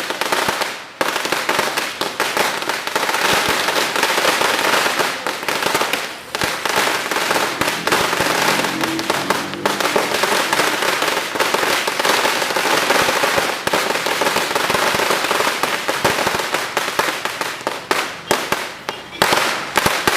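Sinturon ni Judas, a long Filipino belt of linked firecrackers, going off in a rapid, dense string of cracks, with short lulls about a second in and about six seconds in.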